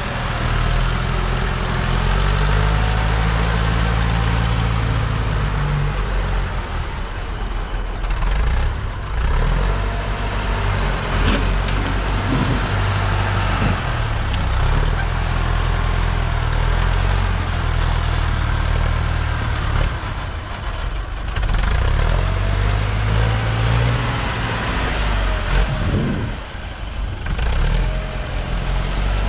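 Farm tractor engine running, its speed rising and falling several times as it works, with a short drop in loudness near the end.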